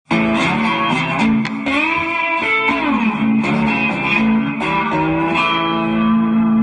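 Intro music: an electric guitar plays a melodic line with bent notes, then settles on a long held note near the end.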